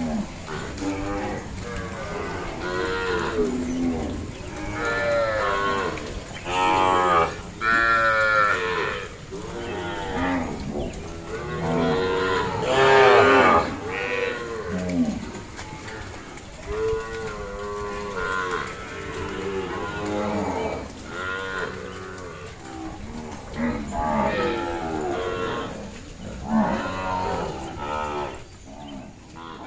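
A herd of zebu cattle mooing, many calls overlapping and following one another throughout, the loudest around eight and thirteen seconds in.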